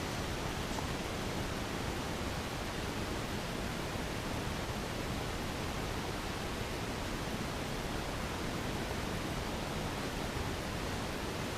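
Steady, even hiss with no distinct sounds in it: wind or recorder noise outdoors.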